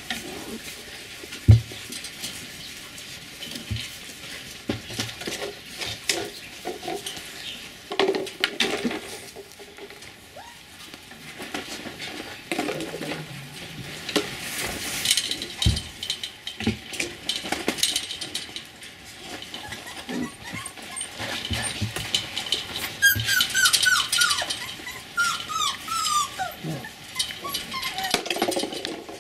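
Border collie puppies moving about in straw, with scuffling and light knocks, and a run of short, high, falling whimpers about three quarters of the way through.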